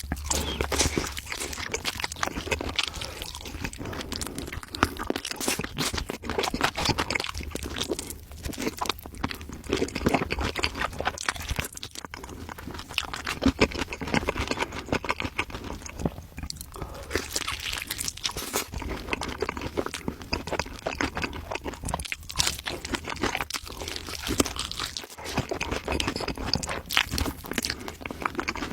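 Continuous crisp crunching: crunchy food being bitten and chewed, dense bites without a break.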